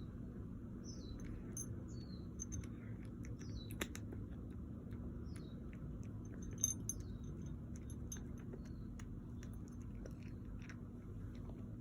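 Small animal nibbling and chewing close to the microphone, with scattered sharp clicks and several short high chirps that drop in pitch, over a steady low hum.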